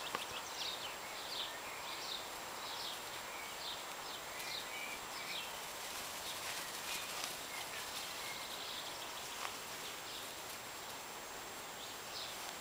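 Quiet outdoor background hiss with a series of faint, short, high chirps, most of them in the first half and a couple near the end.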